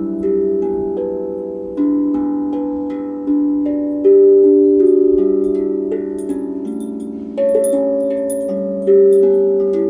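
Pan drum played slowly and melodically: single struck metal notes every second or so, each ringing on and overlapping the next, with the loudest strikes about four and nine seconds in.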